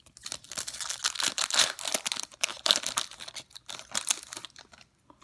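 An Upper Deck MVP hockey card pack's foil wrapper being torn open and crinkled in the hands: a dense crackle that stops about half a second before the end.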